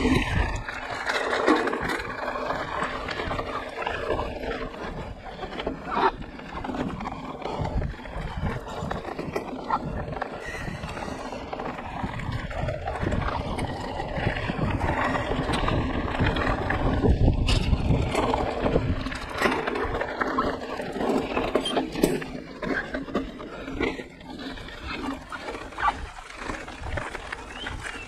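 Mountain bike being ridden on a dirt trail: a steady rush of wind and tyre noise with frequent knocks and rattles as the bike runs over rough ground.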